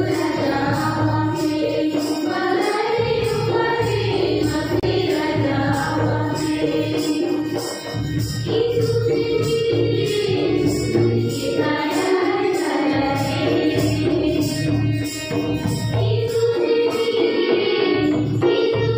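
Devotional hymn sung by a group of voices to an electronic keyboard, with a steady rhythmic beat.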